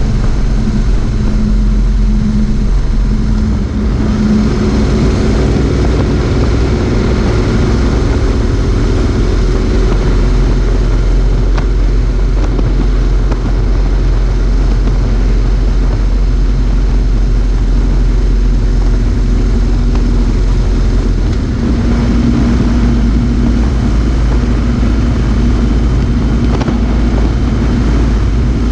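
Motorcycle riding at a steady cruising speed on a highway: the engine runs steadily under a constant rush of wind and road noise. The engine note shifts slightly a few seconds in and again about three quarters of the way through.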